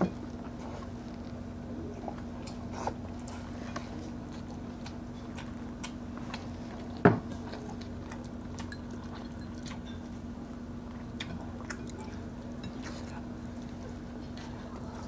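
Quiet eating sounds: chewing, and fingers picking at grilled tuna and rice, with scattered small clicks over a steady low hum. Two sharp knocks, one right at the start and a louder one about seven seconds in.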